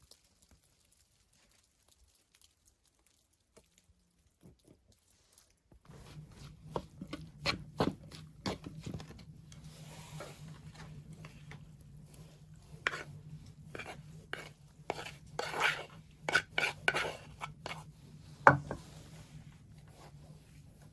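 Cookware and utensils being handled: irregular clinks and knocks that start about six seconds in over a low steady hum, with one sharp knock near the end.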